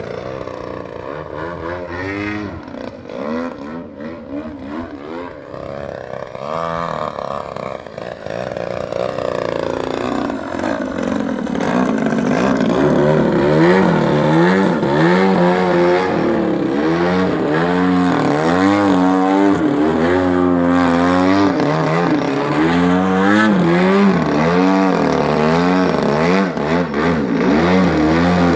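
DA-60 single-cylinder two-stroke gas engine on its stock muffler, driving the 24x9 carbon propeller of an 87-inch Extra 300 RC aerobatic plane. It runs softer for about the first ten seconds, then louder from about twelve seconds in, its pitch rising and falling over and over as the throttle is worked through low 3D manoeuvres and a nose-up hover.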